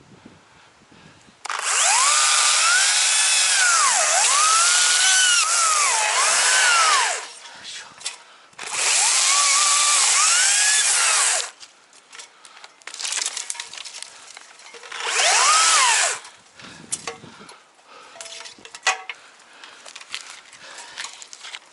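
Two-stroke chainsaw cutting into a thick fallen tree trunk in three bursts: a long one of about five seconds, one of about three, and a short one near the end. Its engine pitch sags under load and picks back up, and it drops away to quieter knocks and clatter between cuts.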